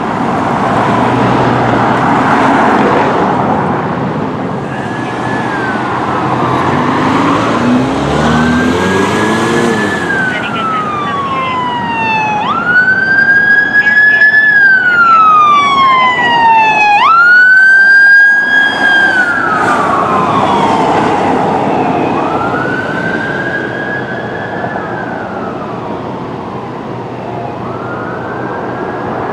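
Emergency-vehicle siren in a slow wail, each cycle rising quickly and then falling, repeating about every four to five seconds. It is loudest a little past the middle, then fades, over engine and road noise from passing traffic.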